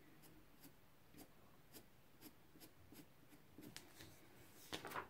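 Pencil scratching on paper in faint, short strokes about twice a second, the short strokes used to draw eyebrow hairs. A louder rustle near the end.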